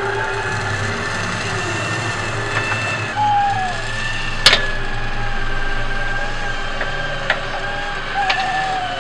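Huina RC excavator's small electric motors and gearboxes whining steadily as the arm and bucket work, the pitch dropping under load a couple of times, with a few sharp clicks, the loudest about four and a half seconds in.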